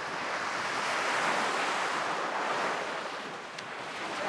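Small waves washing onto a sandy beach: a steady rush of surf that swells in the first couple of seconds, eases about three and a half seconds in, then builds again.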